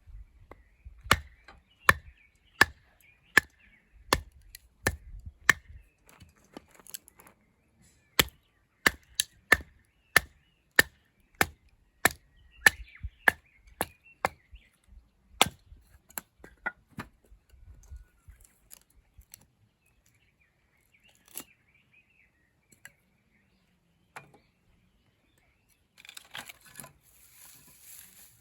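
Firewood being chopped: a steady run of sharp, dry strikes, about one and a half a second, for roughly the first sixteen seconds, then a few scattered knocks and some rustling near the end.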